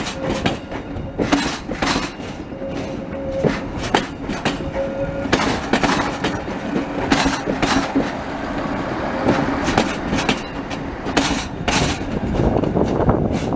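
Class 628 diesel multiple unit rolling slowly past, its wheels clacking unevenly over rail joints and points, over a low steady rumble from the train.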